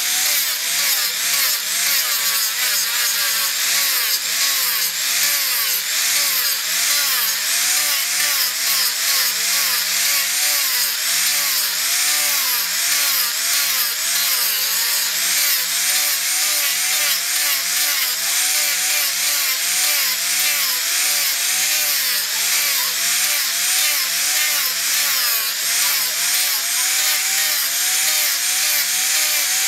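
Electric angle grinder fitted with a sanding disc, running under load as it sands a hardwood block. A steady whir with hissing abrasion, its pitch wavering up and down about once a second.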